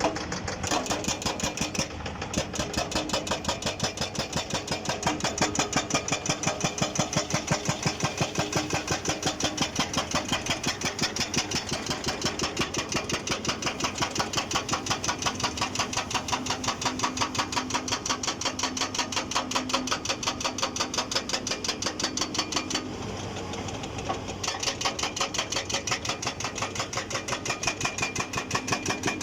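ICM IB1500V hydraulic breaker on a Sunward SWE500 excavator hammering with a rapid, even run of blows, several a second, over the running excavator engine. The blows pause briefly about three-quarters of the way through, leaving the engine sound, then start again.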